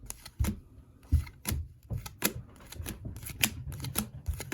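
Hockey trading cards being flipped through by hand, one after another, each card giving a sharp paper snap or tap. There are about a dozen irregular clicks, roughly two to three a second.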